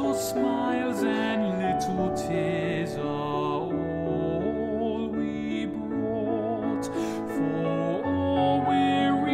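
A man's solo voice singing a slow, gentle carol with vibrato, accompanied by piano.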